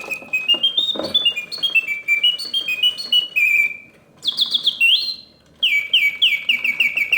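A 1971 Reuge double singing bird cage's bellows-driven whistle mechanism singing its artificial birdsong. It plays phrases of stepped whistled notes broken by two short pauses, then a fast run of repeated falling chirps.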